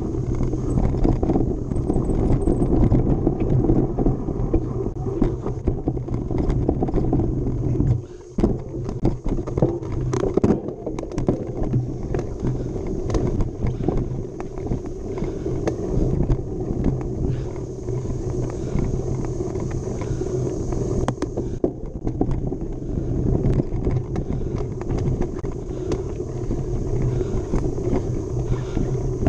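Mountain bike being ridden hard over a trail, with wind rumbling on the microphone and many short rattles and knocks from the bike over rough ground. The rumble dips briefly about eight seconds in.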